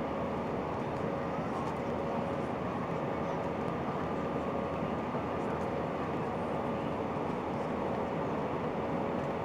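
Steady cabin noise of an Airbus A319-131 in flight: an even rush of the IAE V2500 engines and airflow, with a faint steady hum in it.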